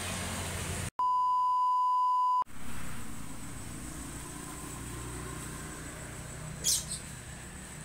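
A censor bleep: a single steady 1 kHz beep tone lasting about a second and a half, starting about a second in, with all other sound cut out beneath it. Around it, a steady low background hum.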